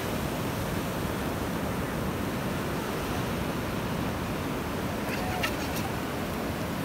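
Ocean surf washing steadily onto a sandy beach, a continuous rush of breaking waves. A few faint clicks come a little past halfway.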